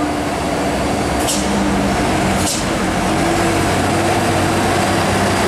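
Diesel engine of a loaded Hino 500 truck running steadily as it creeps round a bend on a steep climb. Two short, sharp hisses come about one and two and a half seconds in.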